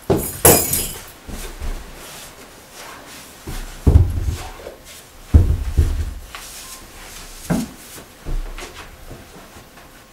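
Scattered knocks, thumps and a clink or two as things are handled and dropped on the floor. A sharp clink comes just after the start, and the heaviest thumps come about four and five to six seconds in.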